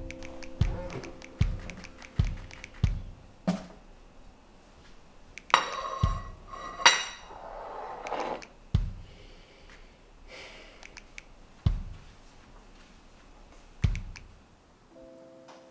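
A plate set down on a kitchen countertop, clattering with a brief ringing about six seconds in, over a sparse score of low thuds and held keyboard notes.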